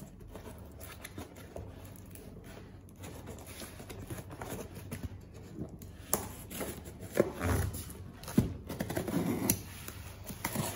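A utility-knife blade slitting packing tape along the seams of a cardboard box: irregular scraping and rustling of tape and cardboard, with several sharp clicks and knocks in the second half as the blade and hands strike the box.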